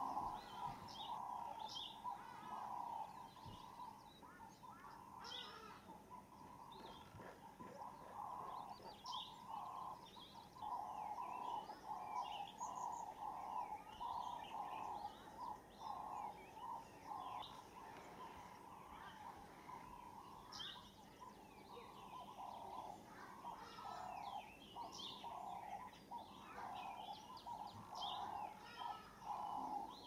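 Wild birds calling and chirping, with many short high chirps and whistles over a lower call repeated in pulses about once or twice a second, which pauses for a few seconds after the start.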